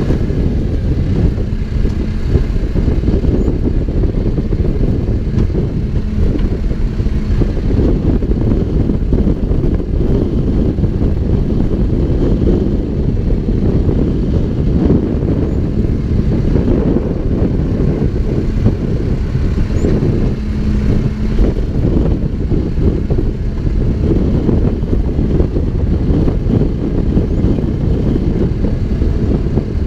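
Backhoe's diesel engine running steadily and loudly, a low rumble with a faint steady hum that comes and goes.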